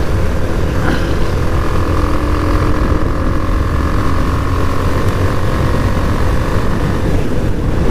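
Loud, steady wind rumble on a mic inside a motorcycle helmet at about 60 to 70 km/h, with the motorcycle's engine running underneath. The rumble comes through a gap in the helmet's cheek pad, which the rider blames for the noise.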